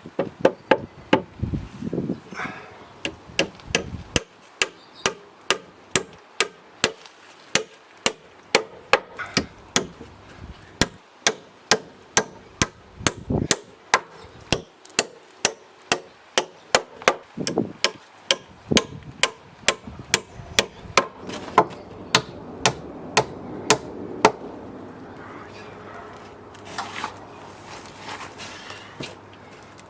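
Hammer driving nails into the timber of a tank platform: a long run of sharp blows, about two a second with a few short pauses, that stops a few seconds before the end.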